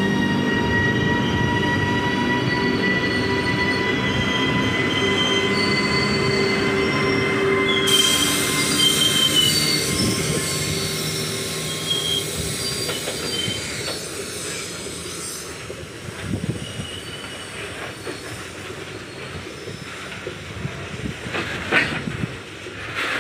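WAG12B electric locomotive accelerating a freight train, its traction motors whining in a steady tone that rises slowly in pitch. About eight seconds in, wheels squeal on the rails for several seconds. The sound then fades to the rumble of the freight wagons rolling past, with a few sharp clicks near the end.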